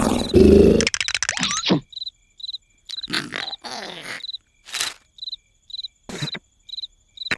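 Cartoon sound effects: a loud, pulsing snore-like rasp that cuts off about a second in, then a cricket chirping about twice a second in the quiet, with a few short noisy bursts in between.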